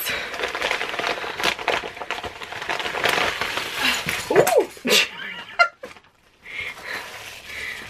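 A plastic mailing bag being rustled and crinkled as a parcel is opened and unpacked, with dense crackling and small clicks. A couple of short pitched whines cut in about halfway through.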